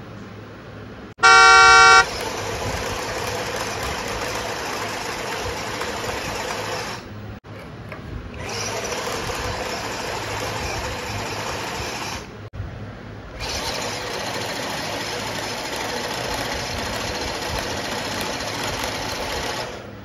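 A short, loud horn blast about a second in, then the steady whirring of RC pickup trucks' motors and gearboxes straining against each other in a rope tug of war, their tyres digging into sand. The whirring stops briefly twice.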